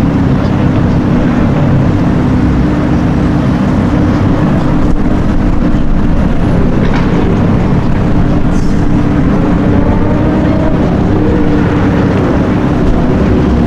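A car engine running steadily and loudly close by, a low rumble with no revving.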